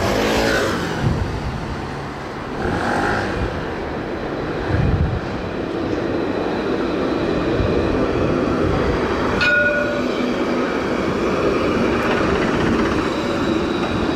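Modern street tram rolling past on its rails: a steady running rumble with a motor hum that builds as it nears. A single sharp ringing ding sounds about nine and a half seconds in.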